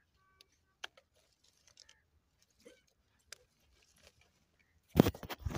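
Pea pods being picked by hand from the vines: a few faint, sharp snaps and clicks, then about five seconds in a loud, crackling rustle of leaves and pods close to the microphone.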